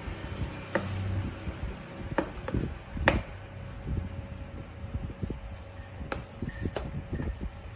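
Handling noise: a few sharp clicks and knocks over low rumbling, the loudest knock about three seconds in.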